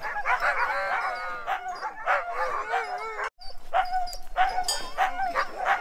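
A chorus of sled dogs barking, yipping and howling over one another, the excited din of a kennel yard as a dog is hitched to the gangline for a run. In the second half, sharp repeated barks stand out over the howling.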